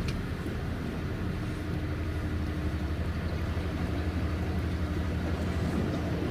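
Steady low hum of a hired electric boat's motor, with a faint even tone over a low rumble.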